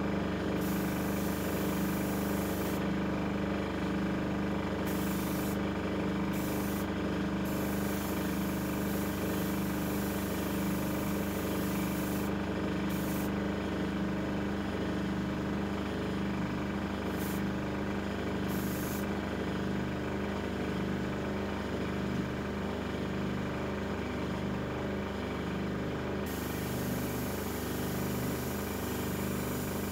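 Air compressor running with a steady hum while an airbrush sprays paint, its hiss of air starting and stopping in spurts of a fraction of a second to several seconds, with a long pause a little past halfway.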